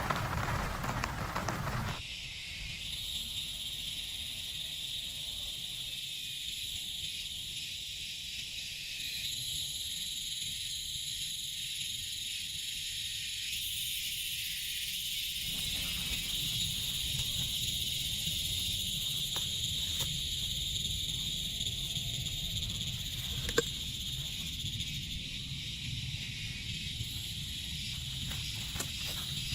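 Steady high-pitched insect chorus in a forest, with a low rumble underneath and one sharp click about 23 seconds in. The first two seconds hold a rain hiss that cuts off abruptly.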